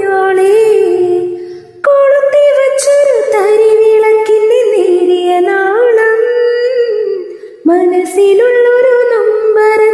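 A woman singing a slow Malayalam song, holding long notes that glide between pitches, with short breaks for breath about two seconds in and again near the eight-second mark.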